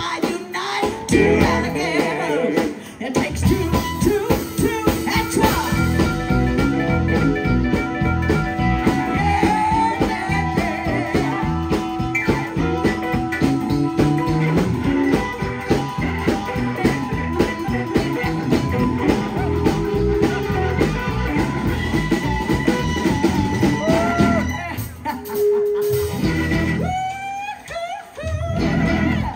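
Live blues band playing: drum kit, electric bass and blues harmonica, with a woman singing. Near the end the band drops back to a quieter, sparser passage.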